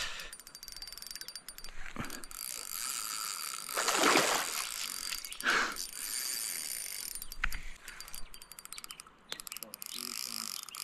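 Fishing reel clicking with rapid fine ticks while a hooked fish is played on the line. Two short rushes of noise stand out about four and five and a half seconds in.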